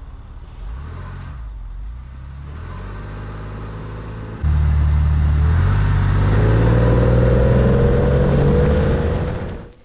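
Porsche 911 flat-six engine heard from right at its rear engine lid. It runs at low revs, then opens up sharply about four and a half seconds in and climbs steadily in pitch as the car accelerates. The sound fades out just before the end.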